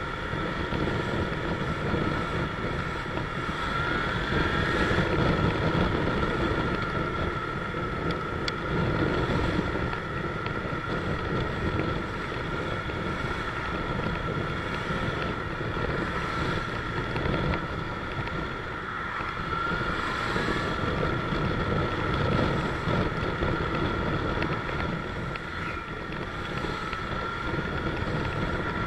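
Motorcycle engine running while riding slowly through traffic, with wind noise on the microphone and a steady high whine over it; the level swells and eases a little with the throttle.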